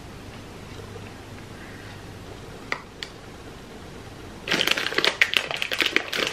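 Crinkling and crackling of a plastic snack bag of chocolate pieces being handled while the pieces are crumbled over a dessert: a couple of faint clicks, then from about two-thirds of the way through a dense run of loud crackles.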